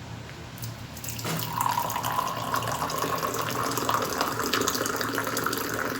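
Tea being poured from a teapot into a glass in a steady stream, starting about a second in, to mix the brew the Moroccan way.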